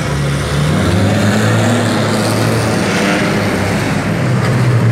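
Off-road vehicle engines running and driving, the engine pitch shifting up and down over steady road noise.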